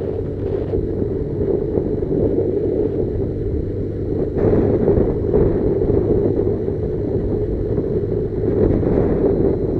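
Motorcycle engine running steadily while riding, with wind rushing over the microphone; it grows a little louder about halfway through and again near the end.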